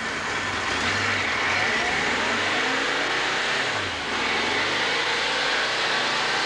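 Kawasaki two-stroke triple motorcycle engine revving up through the gears on a rolling-road dynamometer. The pitch rises steadily, drops briefly at a gear change about four seconds in, then rises again.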